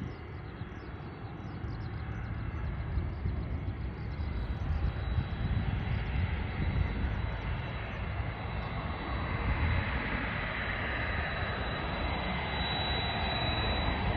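Twin-engine jet airliner's turbofan engines running at low thrust as it lines up on the runway: a steady low rumble with a thin high whine that comes in about a third of the way through. The sound grows louder and hissier over the second half as the jet swings nose-on towards the listener.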